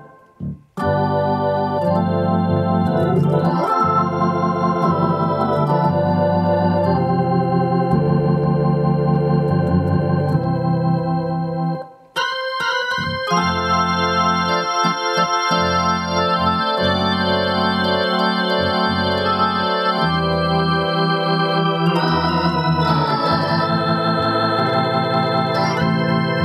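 Yamaha PSR-750 keyboard playing a Hammond B-3 style organ voice, chords and melody played with both hands. The playing breaks off briefly just after the start and again about twelve seconds in.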